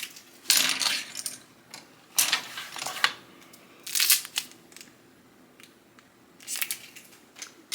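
Makeup brushes and their packaging being handled, in about four short bursts of rustling and clicking with quiet gaps between.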